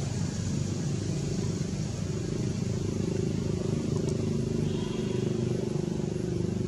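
Steady low drone of an engine running, shifting slightly in pitch about two seconds in.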